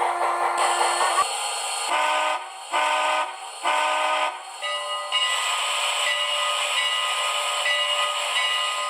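Steam locomotive whistle sound from a TCS WOW Sound decoder in a model locomotive, with steam hiss: a held whistle note ends about a second in, then come three short blasts about a second apart and one long steady blast.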